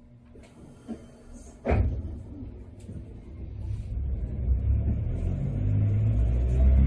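Sapporo streetcar pulling away from a stop: a sharp knock about two seconds in, then the tram's low running rumble growing steadily louder as it gathers speed.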